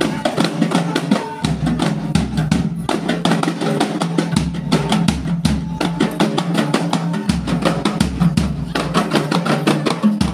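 Procession drums beaten in a quick, steady rhythm, led by a large hand-carried bass drum.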